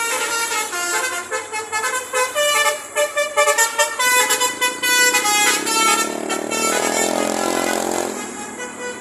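Indonesian bus 'telolet' musical air horn (basuri) playing a fast melody of short tones that step up and down in pitch, several notes sounding together. About six seconds in the melody stops and a broad rushing noise takes over.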